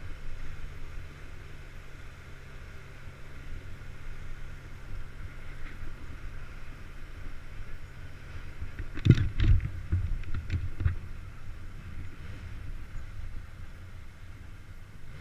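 Motorcycle engine running with a steady low drone, then a cluster of sharp, loud cracks about nine seconds in that die away over the next two seconds.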